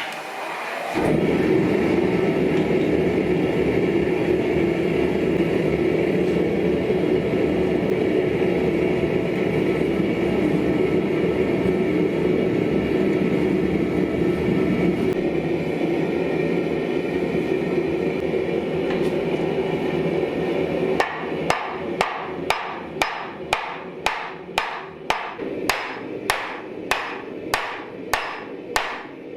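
Propane forge burner running with a steady rushing noise after it is lit. About two-thirds of the way in, hammer blows on hot steel on an anvil take over, evenly spaced at about two a second, each one ringing: the broken pipe-wrench jaw being forged flat into a blade.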